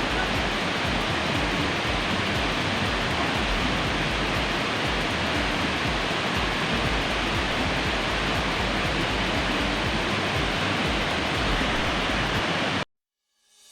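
Steady rushing of a waterfall, cutting off abruptly near the end.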